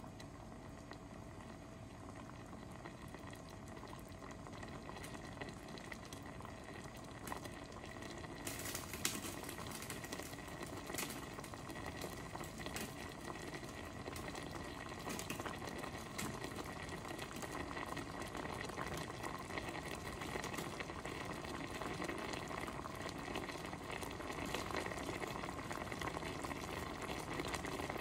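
Vinegar broth of paksiw na isda (fish with onions and garlic) bubbling in a pot on the stove, with small pops from bursting bubbles; the bubbling grows gradually louder as the pot comes up to a fuller boil.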